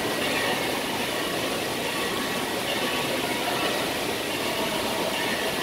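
Steady rushing of water pouring and spraying from an indoor water park's play structure.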